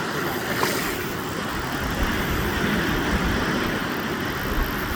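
Steady rushing background noise, with a few low thumps about two to three seconds in.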